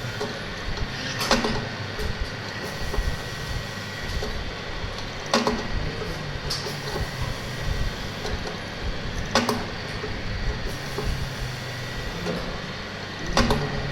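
Ventilator machine running through its breathing cycles: a steady mechanical hum with a thin high whine, and a sharp click every four seconds or so, four in all.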